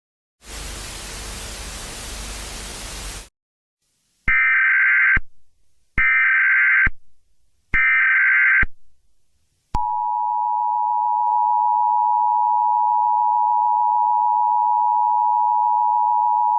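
Mock Emergency Alert System broadcast tones: about three seconds of static hiss, then three short bursts of the EAS digital header's warbling data tones, then the EAS two-tone attention signal, a steady harsh dual tone starting about ten seconds in, announcing an emergency alert.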